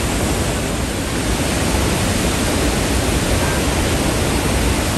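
The Rhine Falls, a large waterfall, pouring into its plunge pool: a loud, steady rush of crashing water, heaviest in the low end.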